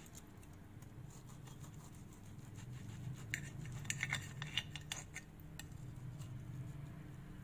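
Knife cutting through a baked meatloaf and scraping against the plate beneath, a cluster of short scrapes and clicks about three to five seconds in, over a faint low steady hum.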